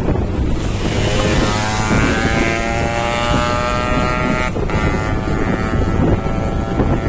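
Bus 'telolet' multi-tone air horn sounding a held chord of several notes for about three and a half seconds, sliding slightly down in pitch and cutting off sharply. It plays over a steady rumble of road traffic and wind on the microphone.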